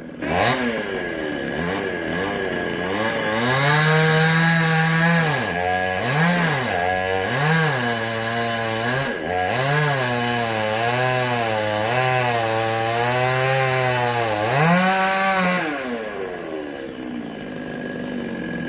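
Two-stroke chainsaw revving up and cutting wood, its pitch dipping and recovering several times under load, then holding lower and steady through a longer cut. It revs once more and drops back to idle near the end.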